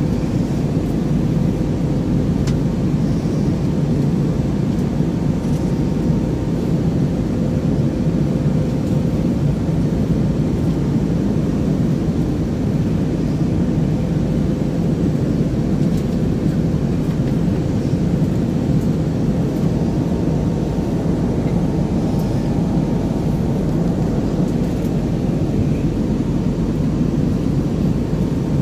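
Jet airliner cabin noise: a steady, even low rumble with a faint steady hum over it.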